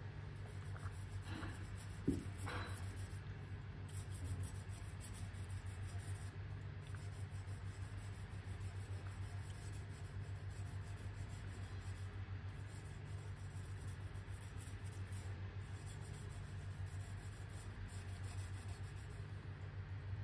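Fine, rapid scratching of 250-grit wet sandpaper rubbed by hand along the raised urushi lacquer and clay-powder filling of a crack in an earthenware vase, sanding the kintsugi repair's first layer down flush. It stops briefly a few times, over a steady low hum.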